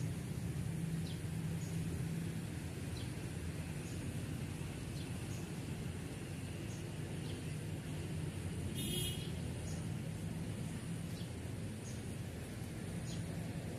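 Outdoor ambience: a steady low rumble with short, faint high chirps of small birds about once a second, and one brief louder high call about nine seconds in.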